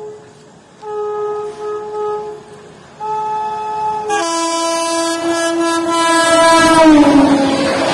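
Horn of an approaching train: a few shorter blasts, then from about four seconds in a louder long blast that dips in pitch near the end, as the rushing noise of the train grows.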